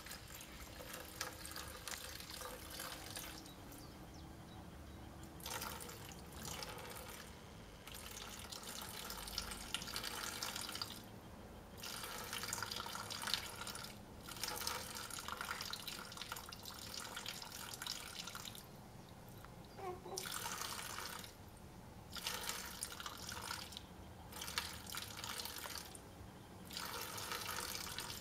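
Water pouring from a plastic watering can and splashing into a shallow basin, in runs of a few seconds broken by short pauses.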